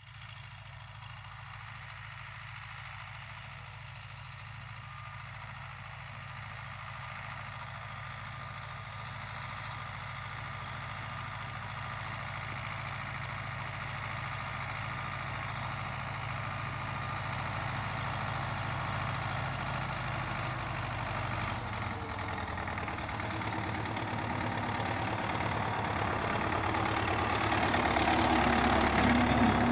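MTZ-80 tractor's four-cylinder diesel engine running steadily under load as it pulls a seed drill through the field. It grows steadily louder as the tractor approaches and is loudest near the end.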